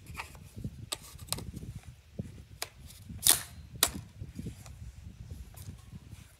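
Gunshots at a shooting range: a few faint sharp cracks, then two louder ones about half a second apart a little after three seconds in.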